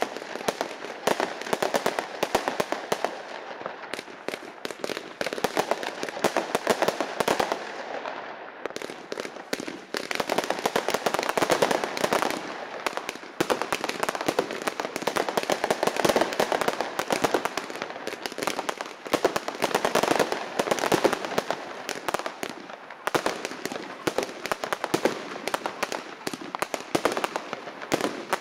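Aerial fireworks going off in a dense, continuous run of bangs and crackling, swelling louder in waves every few seconds.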